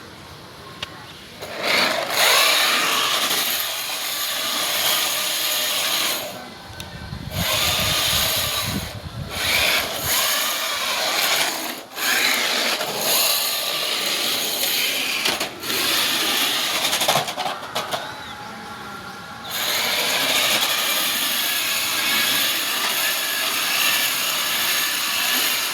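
Radio-controlled drift car running, its motor whining and rising and falling in pitch with the throttle, with a few short breaks in between.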